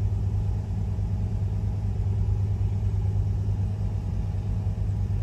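1985 Ford Mustang's 5.0-litre V8 running at a fast idle of about 1,500 rpm after a cold start, a steady low rumble heard from inside the cabin.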